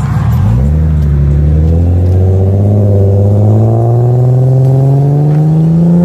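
Lexus IS300's straight-six accelerating past, its exhaust note stepping up about half a second in and then rising steadily in pitch for about five seconds.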